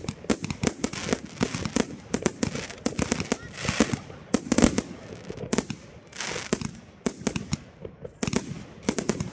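Aerial fireworks bursting in quick succession: many sharp bangs and crackles, densest and loudest around the middle, with a short lull near the end before they resume.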